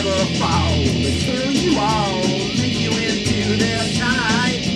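Rock band playing between sung lines: electric bass and electric guitar over a steady, evenly pulsing beat.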